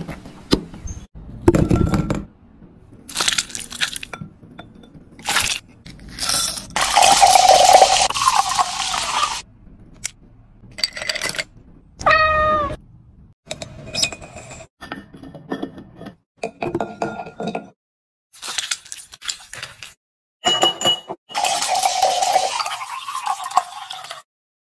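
Kitchen ASMR sounds: knocks and chops of pineapple pieces on a wooden board, a cat meowing once about halfway through, and soda pouring and fizzing into a glass near the end, with glassy clinks between.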